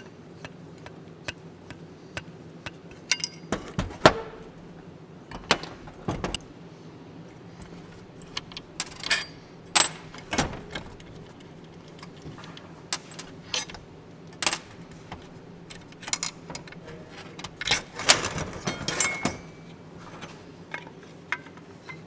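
Scattered metal clicks, clinks and light knocks of hand tools and small parts as a throttle pedal assembly is taken apart on a workbench, over a steady low hum. The clicks cluster around the middle and again near the end, some with a brief metallic ring.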